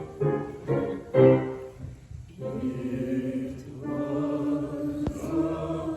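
Choir singing: a few short, detached chords, then one long held chord from about two and a half seconds in.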